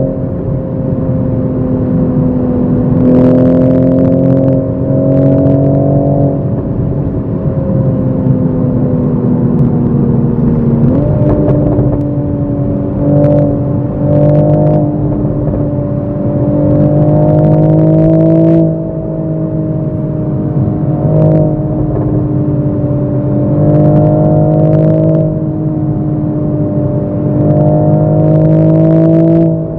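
Toyota GR Supra MK5's turbocharged B58 inline-six heard from inside the cabin, driven in sport mode with gears picked manually. The engine note drifts slowly up and down in pitch, steps sharply up about eleven seconds in, and drops in loudness near nineteen seconds, with short sharp cracks here and there.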